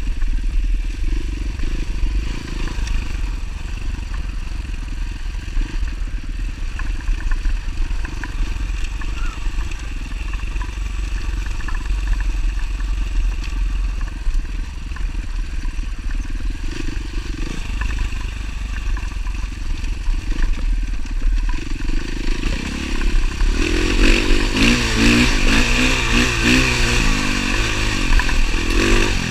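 Dirt bike engine running while riding a rocky dirt track. The engine note rises and gets louder about 23 seconds in as the bike revs harder up a climb.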